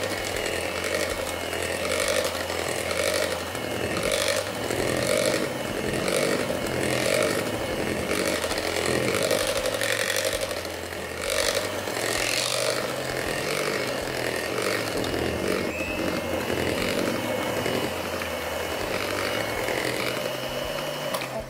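Electric hand mixer running steadily, its twin beaters whirring through thick cake batter in a bowl. The motor sound dips briefly about halfway through and cuts off at the very end.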